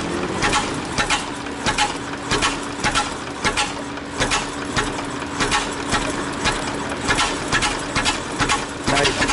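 1926 Ford Model T's four-cylinder engine idling roughly on battery ignition, firing unevenly in irregular knocks, about two or three a second, over a steady hum.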